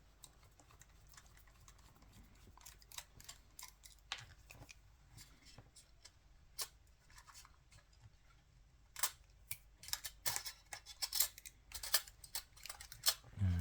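Scattered small, sharp clicks and taps from handling the opened Canon EOS 5D's internal parts and connectors, coming faster in the second half.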